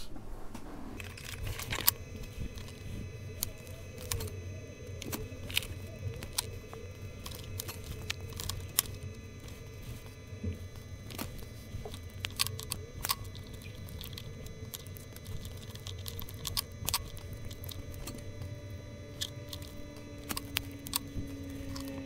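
Irregular small clicks, taps and snips from handling a plastic plug-in mains unit and its circuit board and cutting wire leads with side cutters, over a steady low hum.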